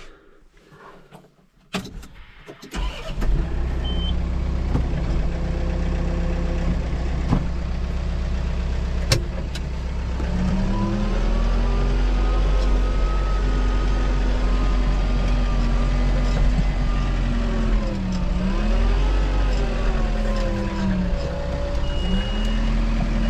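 Tractor engine starting about three seconds in and running at a steady idle, then running faster from about ten seconds with a whine whose pitch dips briefly a few times.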